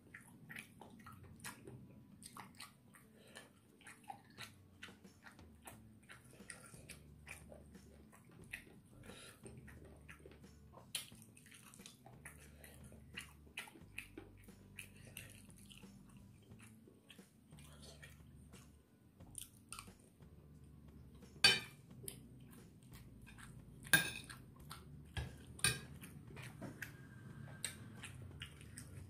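Close-up mouth sounds of a person chewing rice and meat, with many small wet clicks. A metal spoon clinks sharply against the plate three times in the second half.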